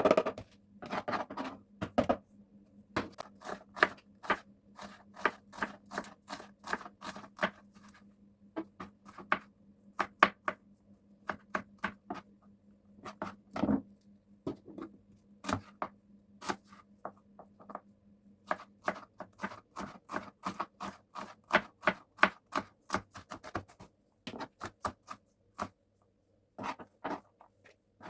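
Runs of quick, sharp taps and clicks, a few a second, with short pauses between the runs, over a steady low hum that stops about two-thirds of the way through.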